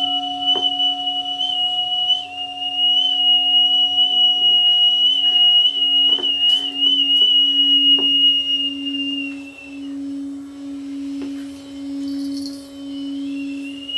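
A small handheld flute sounding a loud, high, piercing tone that wavers slightly, over the steady ringing tone of a crystal singing bowl. The flute stops about ten seconds in, leaving the bowl's tone pulsing on its own, then comes back near the end with a short upward slide.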